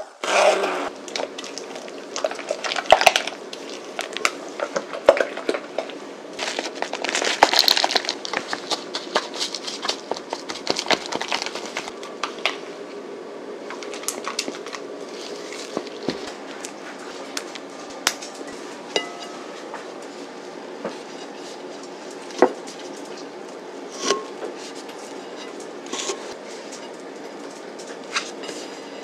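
Kitchen utensils clinking and scraping against a glass bowl and a ceramic mug as batter and frosting are mixed and spread. The clicks come thick and fast for about the first twelve seconds, then only a few separate taps.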